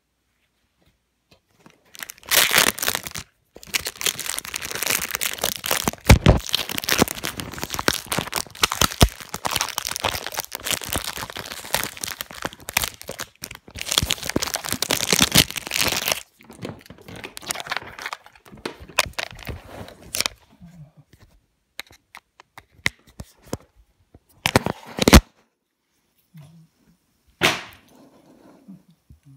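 Crackling and rustling handling noise on the recording device's microphone, dense for about fourteen seconds. It then thins out to scattered clicks, with one sharp knock near the end.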